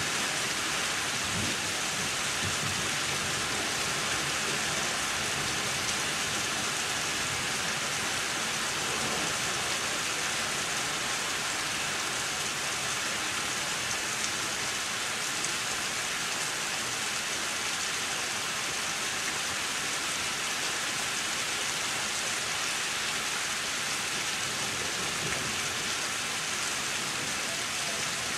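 Heavy rain from a severe thunderstorm pouring down steadily, with a low rumble of thunder in the first few seconds.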